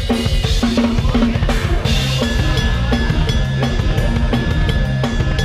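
Drum kit played in a lam sing groove, with bass drum, snare and rimshot strokes, over a band with sustained bass notes; a held high tone comes in about two seconds in.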